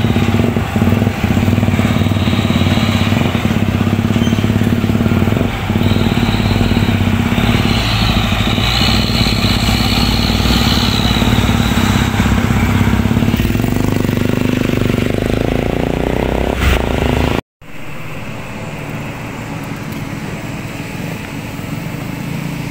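Heavy truck engine running close by, its pitch rising steadily over a few seconds as it pulls away. The sound then cuts abruptly to a quieter, steady low engine hum.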